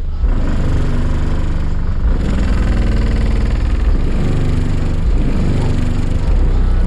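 Car audio system playing bass-heavy music at high volume, with the deep bass strongest and pitched parts changing every half second or so above it.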